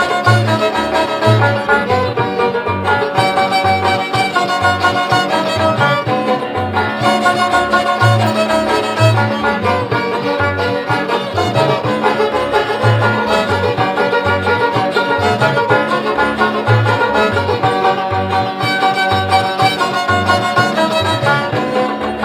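Background music: an upbeat instrumental tune with fiddle-like melody over a steady bass beat.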